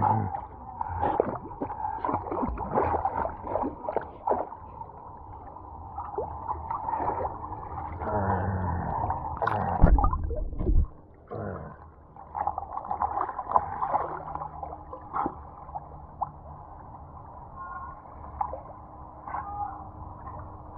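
Muffled pool water sloshing and gurgling as a dog swims, with scattered knocks and splashes; the sound is dull, with little treble, as heard underwater.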